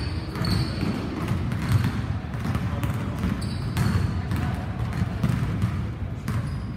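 Basketballs being dribbled on a hardwood gym floor: repeated, irregular bounces over a steady low hum.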